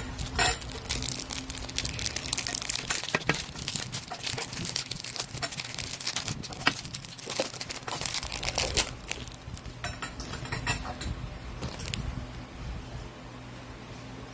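Clear plastic packaging crinkling and crackling as a small figurine is handled and taken out of it, busiest in the first nine seconds and thinning out toward the end.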